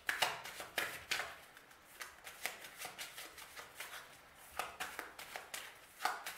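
A deck of tarot cards being shuffled by hand, passed from one hand to the other: an irregular run of short card slaps and swishes, a few a second.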